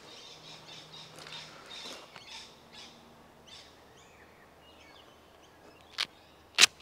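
Birds chirping in many short calls, busiest in the first three seconds and sparser after. Near the end come two sharp clicks about half a second apart, the second the loudest sound.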